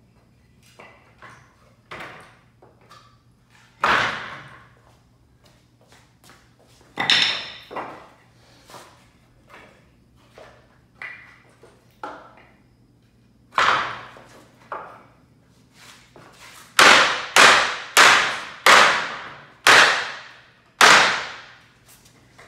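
Blows on a wooden pallet as its bottom deck boards are knocked off by hand. Scattered sharp knocks, each ringing briefly, give way near the end to a run of about six loud blows, roughly two-thirds of a second apart.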